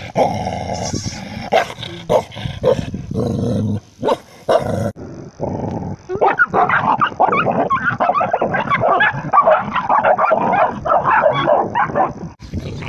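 Tibetan mastiff puppies: low growling over food for the first few seconds, then from about six seconds in a rapid run of yips and growls as two puppies play-fight.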